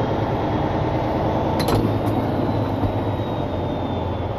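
Steady engine and road rumble heard inside the cab of a moving vehicle, with a few faint clicks about two seconds in.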